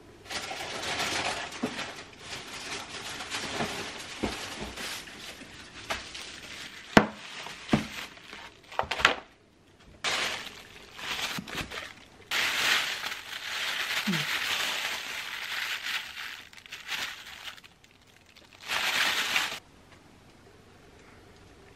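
Black plastic bag crinkling and rustling as surf clams are handled into a stainless steel pot, with a few sharp clacks of shells against the pot about seven to nine seconds in.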